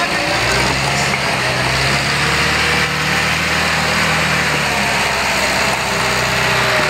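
Tractor engine running steadily at a constant low speed.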